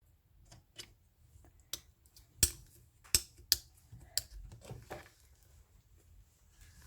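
Slime being pressed and squeezed by hand, giving a series of sharp clicks and pops, the loudest three between about two and a half and three and a half seconds in, followed by softer squishing.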